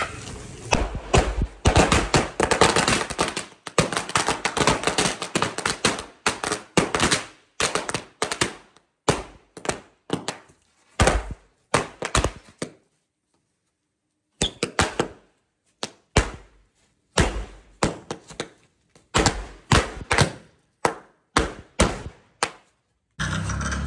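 A cardboard box full of small red bijli firecrackers going off together: a rapid, irregular string of sharp bangs, thick and overlapping for the first several seconds, then thinning to single pops and short clusters. About halfway through the bangs stop for a second or so, then start again.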